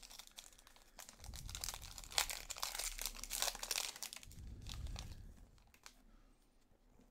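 Foil wrapper of a Panini Prizm basketball card pack crinkling as it is torn open by hand and the cards are pulled out; the crinkling dies away about two-thirds of the way through.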